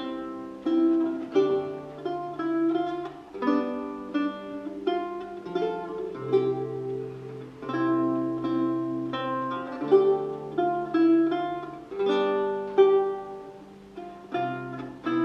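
A lute played solo: a plucked melody and chords over held bass notes.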